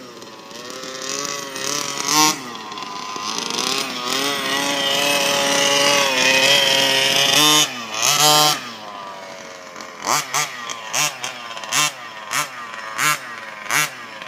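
The small engine of a freshly rebuilt Baja on its first test run, revving up in pitch and held high for several seconds, then dropping off. In the last few seconds come a string of short, sharp throttle blips, about one every half second or so.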